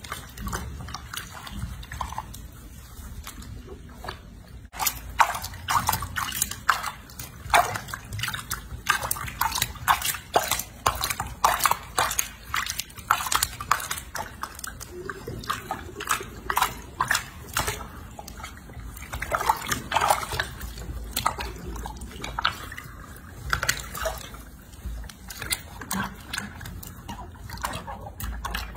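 Bathwater sloshing and splashing in a small basin as hands scrub a baby monkey, in many short irregular splashes.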